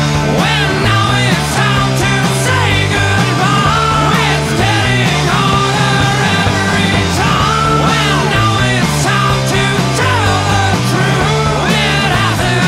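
Background rock music with a steady, stepping bass line and a melody over it.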